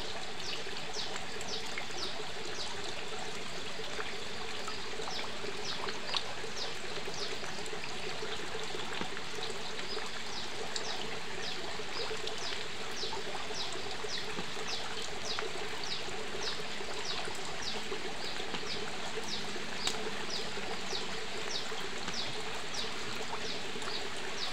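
Steady trickle of water pouring into a fish pond, with repeated short, high, falling chirps about once or twice a second over it.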